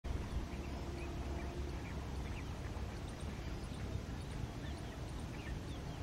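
Outdoor background: a steady low rumble with faint, scattered short bird chirps.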